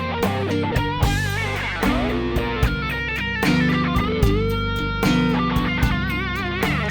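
Electric guitar playing a slow blues solo over bass and drums. It moves between quick runs of notes and bent notes shaken with wide vibrato, with one long sustained note in the middle.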